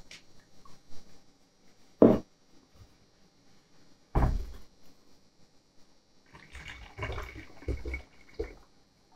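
Liquid ceramic glaze being poured through a metal funnel into a plastic bottle, with two sharp knocks from the containers being handled. Near the end there is a couple of seconds of pouring and sloshing.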